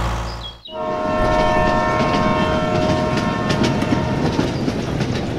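Train horn sounding one long held chord over the rumbling clatter of wheels on rails, starting about a second in, just after a steady low engine hum fades out.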